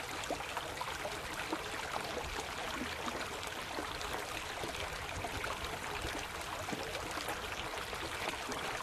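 Steady rushing of flowing water from a nearby stream or channel.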